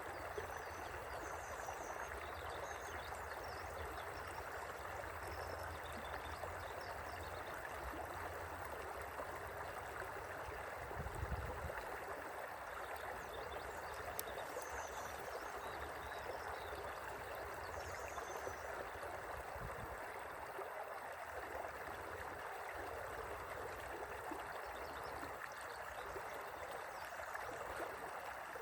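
River water flowing steadily over stones, an even rushing and gurgling. Faint short high chirps come and go above it.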